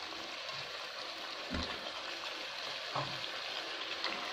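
Potatoes frying in a tomato and spice sauce in a pot, a steady sizzle, with a couple of soft knocks about a second and a half and three seconds in.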